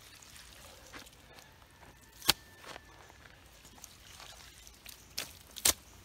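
Wet clay-and-grass mud slapped and pressed into place by hand, a few sharp wet slaps over a quiet background, the loudest about two seconds in and two more near the end.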